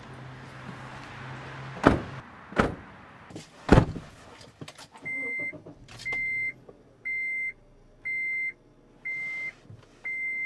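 Honda Element's dashboard warning chime beeping six times, about once a second, each beep short and high. Before it come several loud thuds as someone gets into the driver's seat, over a low hum.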